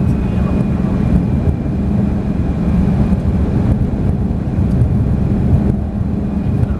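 Lamborghini engine heard from inside the cabin, running at steady, moderate revs with road rumble as the car cruises at around 40 mph.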